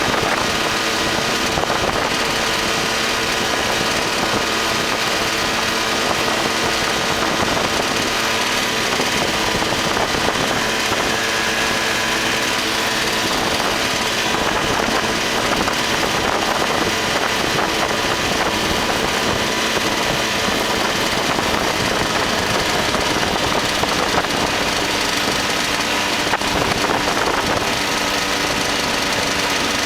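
Ultralight aircraft's engine and propeller running at a steady, unchanging speed, with a broad rush of air noise over it.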